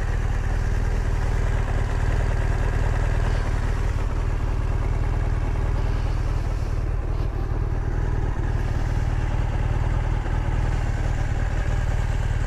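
BMW R1200GS Rallye's boxer-twin engine idling steadily.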